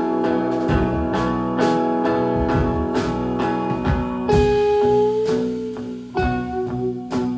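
Live band playing an instrumental passage: guitar strummed to a steady beat of about two strokes a second, with a long held note that bends slightly coming in about halfway through.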